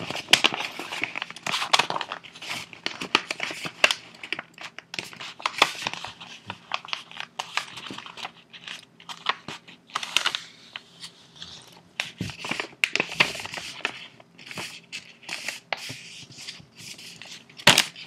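Sheets of neon paper rustling and crinkling as hands fold and crease them flat on a table. Irregular scrapes and sharp crackles come in quick clusters, with brief lulls between them.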